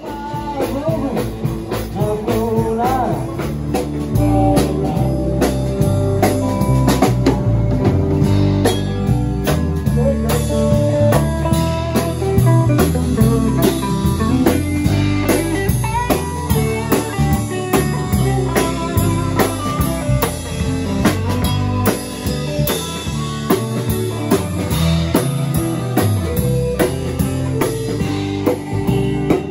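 Live blues-rock band playing, with electric guitars, bass and a drum kit keeping a steady beat.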